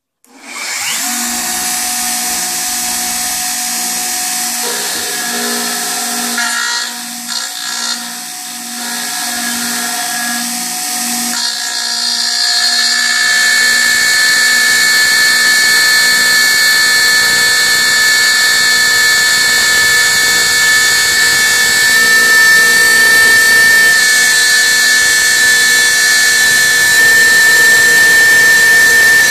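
Router with a 1/4-inch cutter running steadily. About twelve seconds in it gets louder, with a steady high-pitched whine as the cutter mills through aluminum plate.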